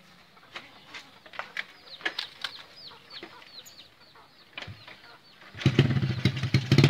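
Small birds chirping in short falling notes, with scattered light clicks. About five and a half seconds in, a small motorcycle engine starts and runs much louder.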